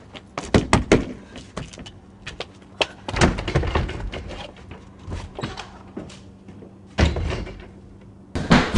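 Irregular sharp knocks and bangs, several in quick succession in the first second, with heavier thuds about three seconds and seven seconds in.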